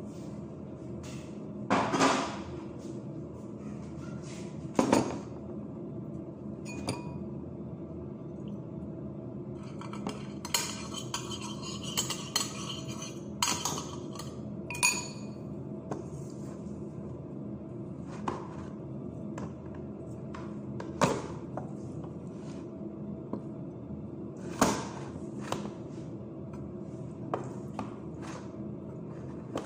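Kitchenware clinking and knocking as a glass baking dish and a large mixing bowl are handled and food is scooped between them. The knocks come irregularly, with a quick run of them near the middle, over a steady low hum.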